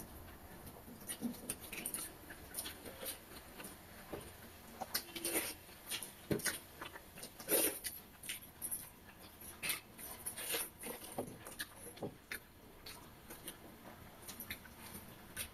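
Eating by hand from steel bowls of pakhala (watered rice) and small fish curry: faint, irregular clicks and soft wet squelches as fingers work the rice and pick at the fish, with quiet chewing.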